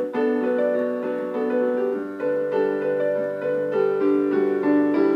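Piano played alone in a short instrumental passage: sustained chords, with the notes moving every half second or so.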